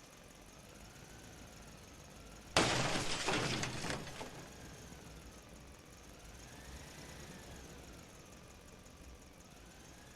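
A sudden crash about two and a half seconds in, a shattering clatter that dies away over about a second and a half. Under it runs a faint hum with a thin tone that slowly rises and falls.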